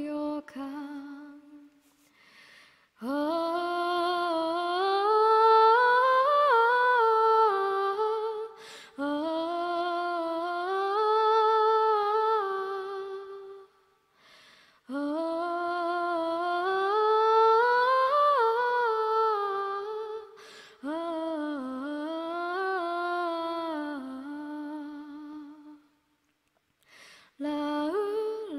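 A woman's voice singing a cappella, a wordless hummed vocal line. It moves in long, gliding phrases of about five seconds each, with short breaths between them, and a new phrase starts near the end.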